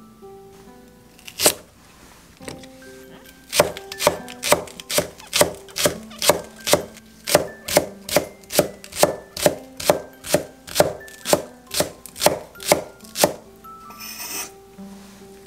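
Cleaver slicing the white part of a Korean green onion (daepa) on an end-grain wooden cutting board: one knock, then a steady run of chops about two and a half a second, and a brief scrape of the blade near the end as the slices are scooped up. Soft background music underneath.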